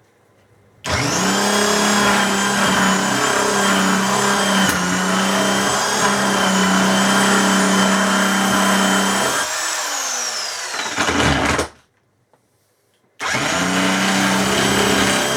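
Electric impact wrench running loud and steady in a long burst of about nine seconds, its pitch falling as it spins down, then starting again after a short pause near the end.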